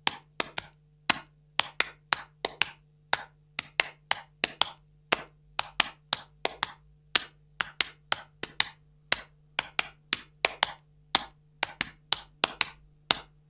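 Sharp hand claps beating out a 4-against-3 polyrhythm, about four strikes a second in a repeating uneven pattern.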